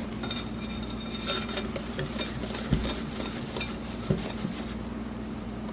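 A utensil stirring powdery bath bomb mix in a glass bowl, scraping and lightly clinking against the glass, with a couple of soft knocks around the middle.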